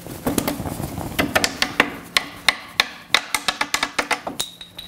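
A paintbrush beaten hard against the wooden leg of an easel to knock excess liquid out of its bristles: a fast run of sharp wooden knocks, about four or five a second, that stops a little before the end.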